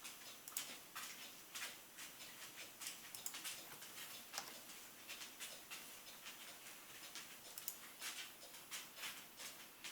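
Faint irregular clicking and crackling over a low hiss, a few sharp clicks a second, like radio static between transmissions.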